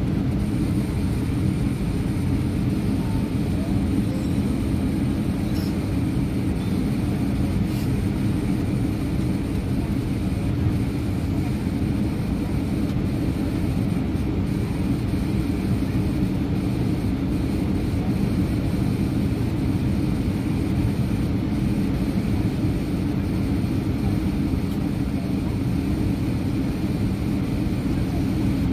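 Steady cabin noise inside an Airbus A320-200 airliner in flight: a constant low rumble of the engines and rushing air, with a faint steady whine above it.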